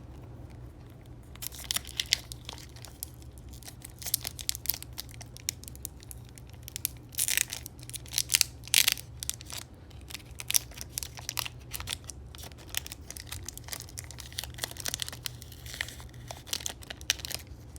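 Pokémon booster pack wrapper being torn open and crinkled by hand, in irregular crackling bursts, with the cards inside handled.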